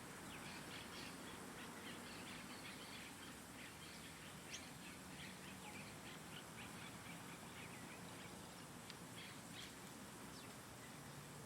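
Small birds chirping: a busy run of short, high chirps, thickest in the first half and thinning out later, over a faint steady hiss.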